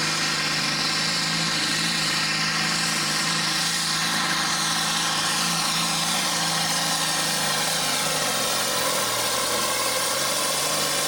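John Deere Pro Farm pulling tractor's diesel engine running flat out under load as it drags the sled, a loud steady drone whose pitch dips slightly about eight seconds in.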